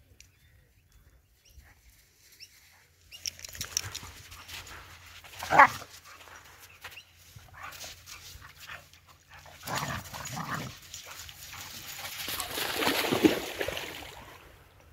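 Two dogs playing and vocalising, with a short high whine about five and a half seconds in.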